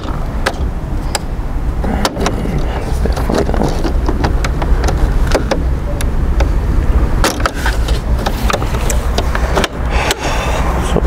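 Plastic clicks and knocks as hands press a car's plastic front grille into the bumper, its clips not snapping in, over a steady low rumble.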